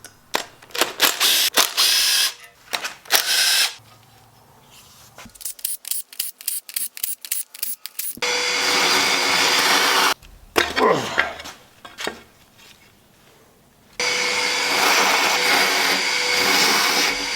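A power tool, drill- or impact-driver-type, runs in two long steady stretches while bolts come out of an engine being torn down. Before them come metal tool clinks and a quick run of clicks.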